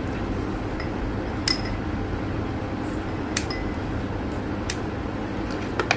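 Kitchen scissors snipping a cooked octopus into pieces over a ceramic bowl, with about four sharp metal-and-china clicks spaced a second or so apart over a steady background noise.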